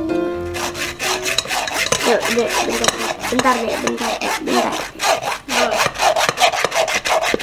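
A metal spoon scraping and stirring in a stainless-steel mesh strainer in rapid, repeated strokes, pressing thick blended cincau (grass jelly) leaf pulp through the mesh.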